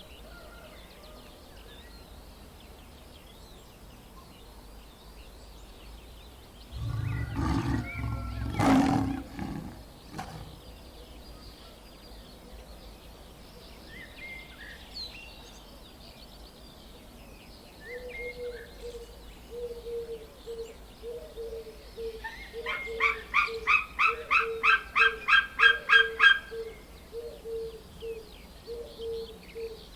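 Animal calls: one deep, drawn-out call of about three seconds, then a string of short calls at about two a second. In the middle of that string comes a fast run of higher, shrill calls that grows louder and then stops abruptly.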